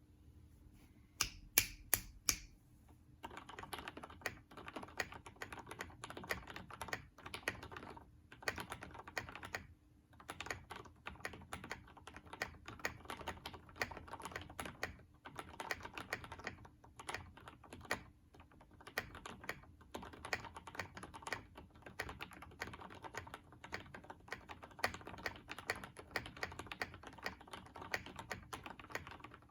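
Typing on an NCR80 mechanical keyboard with Cherry MX Black Hyperglide linear switches, lubed and filmed, and PBT keycaps. Four sharp, louder clicks come about a second in, then fast, continuous typing from about three seconds in.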